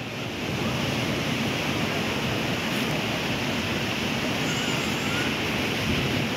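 Sea surf breaking and rushing steadily, mixed with wind blowing across the microphone.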